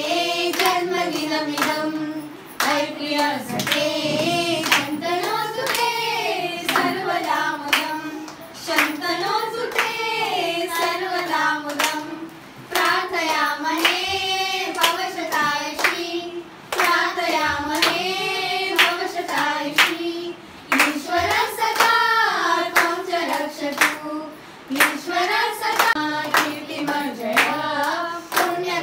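A group of children and adults singing a birthday song together around the cake, clapping along in time.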